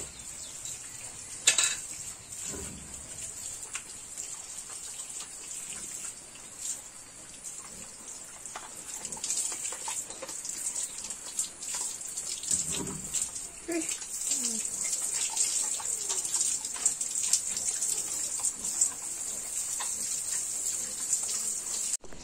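Garden hose spraying water onto pigs and the wet concrete floor of their pen: a steady hiss and splatter, with scattered splashes and knocks.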